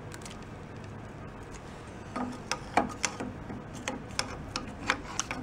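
Screwdriver tapping and clicking against a metal carburetor body, a scatter of small sharp metal ticks starting about two seconds in.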